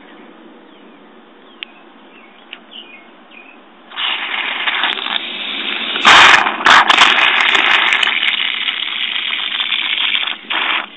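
Pressurised water rushing and spraying out of an RV toilet's water valve as it is turned with the water pump on. The rush starts about four seconds in and gets much louder about two seconds later.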